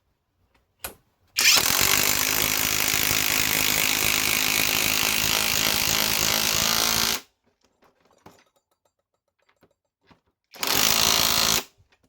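Greenworks Pro IW 5800 mid-torque impact wrench driving a thick fastener: one continuous run of about six seconds, then a short burst of about a second near the end. A few faint clicks fall between the two runs.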